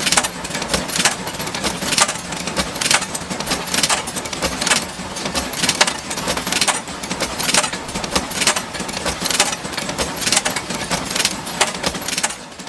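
Screw-making machinery running: a steady hum under a fast, uneven clatter of sharp metallic clicks, several a second.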